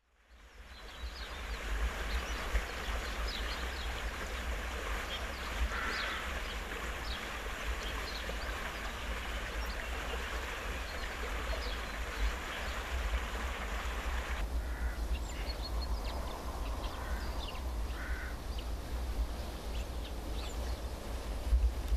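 Wind buffeting the microphone with a steady low rumble, and small birds chirping in many short calls throughout. The background hiss drops suddenly about two-thirds of the way through.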